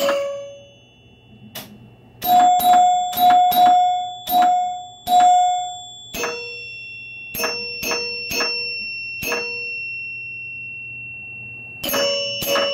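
Freshly rebuilt chime unit of a 1976 Bally Captain Fantastic electromechanical pinball machine, its coil plungers striking the metal chime bars as the game scores. The strikes come in quick runs, several on one bar and then on another, each bar ringing at its own pitch and dying away. One strike rings on for several seconds.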